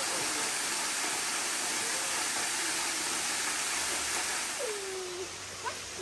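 Steady rushing hiss of a tall waterfall falling into a pool, easing off near the end, with a faint voice briefly just before it does.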